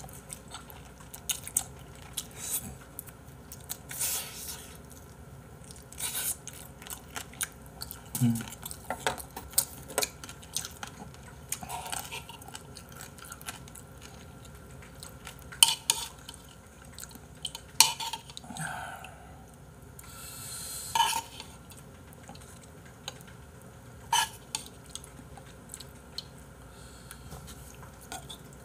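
A metal spoon and chopsticks clinking and scraping against ceramic bowls in sharp, irregular clicks every few seconds, with chewing between them as a man eats a mukbang meal.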